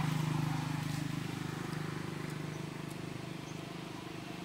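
A motor running steadily with a low hum, easing off slightly, with a few faint ticks.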